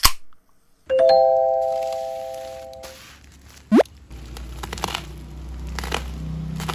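A single bell-like chime of three held notes, like a doorbell ding, about a second in, dying away over about two seconds. Then a quick rising whistle-like glide, and from about four seconds crinkling of packaging begins over a low hum.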